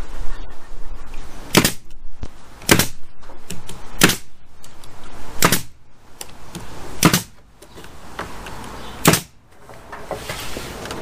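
Nail gun firing six single nails, spaced about one to two seconds apart, each a sharp crack.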